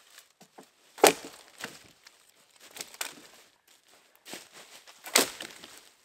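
Two sharp cracks of wood about four seconds apart, with lighter crackling and crunching between them.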